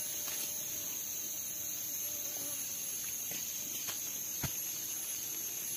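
Steady high-pitched chorus of tropical forest insects, an unbroken shrill drone, with a few faint clicks as a durian husk is pulled apart by hand.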